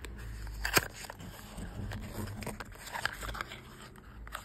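Small cardboard box being handled and opened and a charging cable pulled out of it: irregular scraping and crinkling of card, with a sharp click about a second in.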